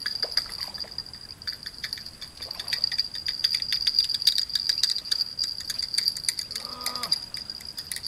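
Fishing reel clicking rapidly and irregularly as a hooked fish is played and wound in, the clicks thickest in the middle, over a steady high drone of insects.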